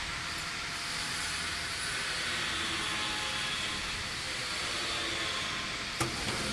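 Steady hiss and hum of running machinery, with two sharp clicks near the end.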